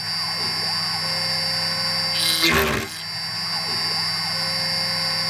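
CNC machine's spindle running with a steady high whine while a drill bit pecks into aluminium plate; about two and a half seconds in, the cut gets briefly louder and rougher as the bit plunges.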